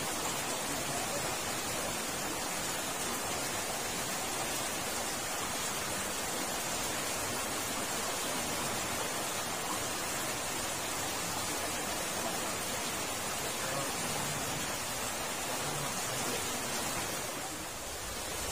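Steady rush of water flowing through the concrete drain culvert beneath the steel grates.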